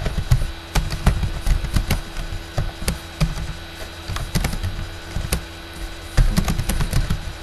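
Computer keyboard keys clicking irregularly, several a second, as text is typed, over a faint steady hum. A heavier low thump comes just after six seconds in.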